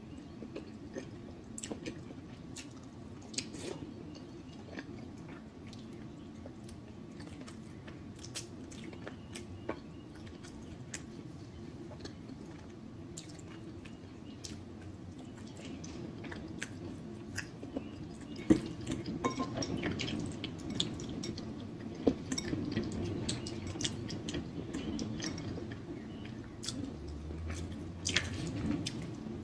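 Close-miked wet chewing and mouth smacking while eating shrimp in butter sauce, with scattered sharp clicks and wet drips. It gets busier and louder about halfway through.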